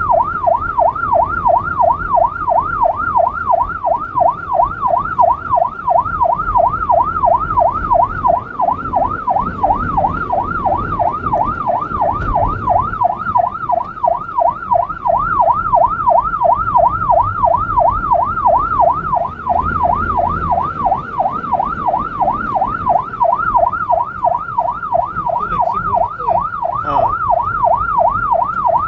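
Emergency-vehicle electronic siren in a fast yelp, its pitch rising and falling about three times a second without a break, heard from inside the vehicle's cabin over low road rumble.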